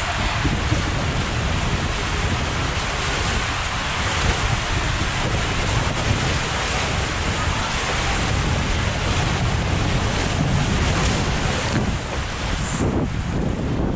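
A two-person raft riding down a bowl water slide: steady rushing water and the raft sliding, with wind buffeting the microphone.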